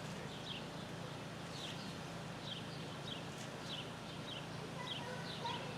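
A bird chirping over and over in short falling chirps, about two a second, over a low steady hum.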